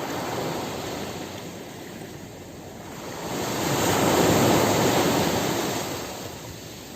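Sea waves on the shore: a steady wash of surf, with one wave swelling a few seconds in, breaking loudest about halfway through, then fading out.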